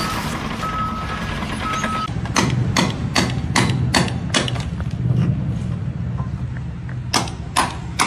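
Repeated sharp knocks, about two and a half a second, over a steady low engine rumble, with a few short high beeps in the first couple of seconds; the knocks pause for about two seconds midway and then start again.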